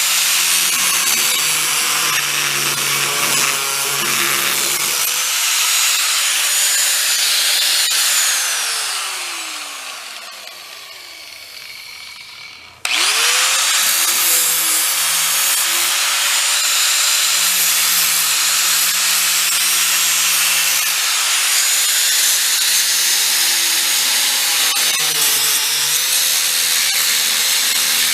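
Angle grinder cutting into the steel around an old VW bus gas door latch. About eight seconds in it is let off and winds down with a falling whine. A few seconds later it starts again with a quick rising whine and runs on steadily.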